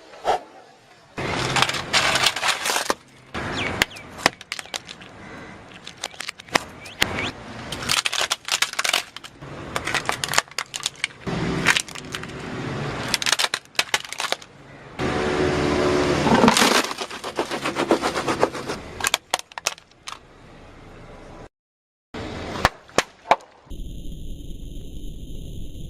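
Repeated crunching and cracking of something brittle being broken, in dense bursts of crackles with short pauses between them. A steady hum begins shortly before the end.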